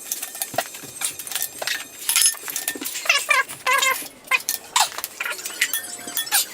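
Head bolts on a Honda B20 engine being broken loose with a breaker bar: sharp metallic clicks and clinks of the tool, with high wavering squeaks of the bolts turning a little after 3 seconds in.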